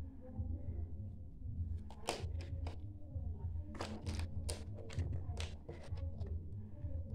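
Hard plastic toy pieces clicking and tapping together as they are fitted and pulled apart by hand: a dozen or so sharp, short clicks from about two seconds in, over a steady low hum.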